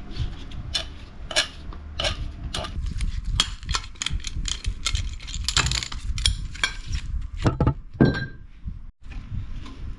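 Handheld tube cutter being turned around a plastic-coated steel Irector pipe, with irregular metallic clicks and clinks as the cutter and pipes are handled and knock together. A louder knock comes near the end.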